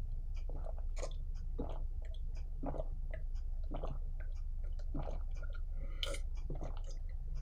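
A man gulping down a pint of stout, swallowing about once a second.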